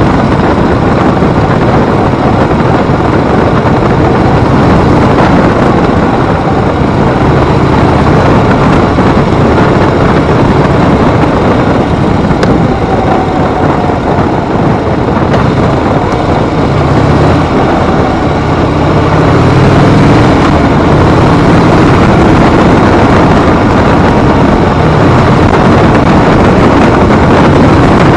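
Harley-Davidson motorcycle running on the road, its engine's low drone under heavy wind rush. It gets a little louder partway through.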